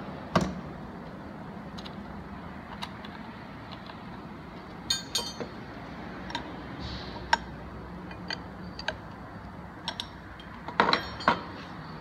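Sharp metallic clicks and clinks as a cutter is fitted into a CNC router spindle's collet and the collet nut is tightened with spanners, over a steady low hum. The clicks are scattered about a second apart, with a quick cluster near the middle and the loudest pair near the end.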